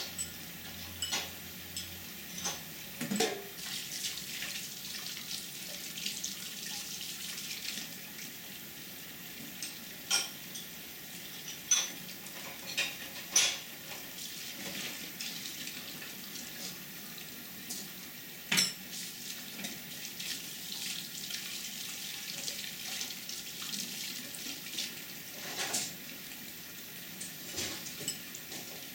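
Kitchen sounds: a steady hiss like a running tap, with a few sharp clinks of tableware scattered through.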